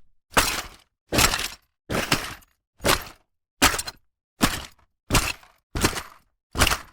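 Tool bag being handled, in a row of about nine short separate clunks and clatters, each under half a second, with dead silence between them.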